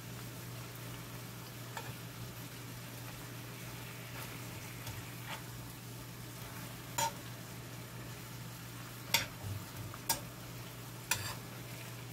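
Soy braising sauce simmering and sizzling under pieces of semi-dried eel in a stainless steel pan. A metal spoon stirs and bastes, clinking sharply against the pan several times, mostly in the second half.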